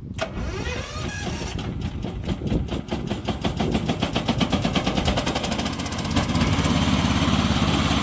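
Petrol engine of a tracked remote-control mower started from its control panel, firing unevenly at first, then picking up speed and settling into steady running about six seconds in.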